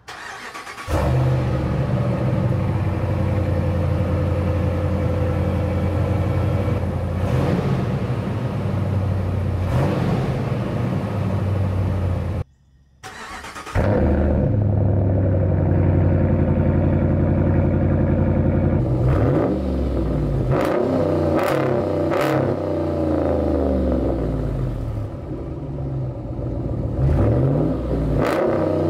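Ram 1500's 5.7-litre Hemi V8 exhaust, loud, running at a steady idle, then, after a short break, revved several times with the pitch sweeping up and down.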